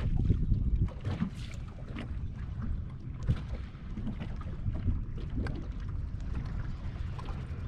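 Wind buffeting the microphone on a boat, a steady uneven low rumble, with small waves lapping and slapping against the hull in scattered short splashes.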